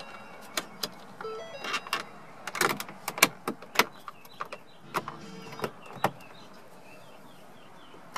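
Plastic dash trim cover on a 2017 Ford Explorer being pressed back onto the screen bezel, its clips snapping into place: a series of sharp clicks and taps through the first six seconds, then quieter.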